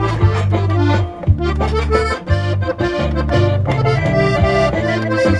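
Diatonic button accordion tuned in G playing a norteño melody in the key of C, with the left-hand basses pulsing steadily under the treble tune.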